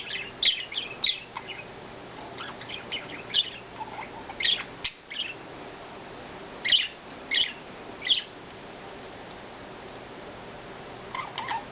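Pet budgerigars chirping: short, high chirps in scattered bursts, a quieter stretch of a few seconds, then chirps again near the end.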